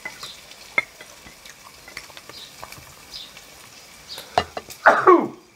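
Beef sizzling on a tabletop mookata dome grill, with chopsticks clicking against bowls and the grill. Near the end comes a brief, loud, falling squeak.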